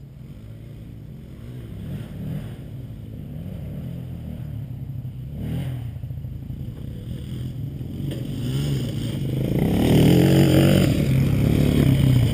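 4x4 truck engine running under changing throttle, its pitch rising and falling, and growing steadily louder until it is pulling hard over the last few seconds.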